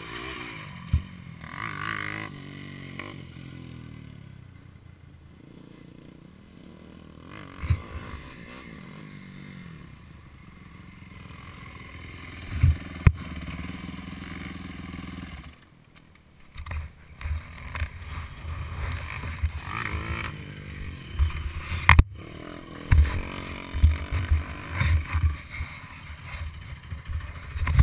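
Dirt bike engines running and revving close by, with the pitch rising and falling in the first few seconds and a steadier idle through the middle. In the second half, wind buffeting and knocks on the helmet-mounted microphone come in as irregular low thumps.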